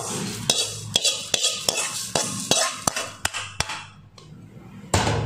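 Dry roasted moong dal poured from a steel plate onto raw rice in a steel bowl, the grains rattling down, then a hand stirring the dry rice and lentils together with a series of light clicks and knocks against the steel. A rushing noise starts near the end.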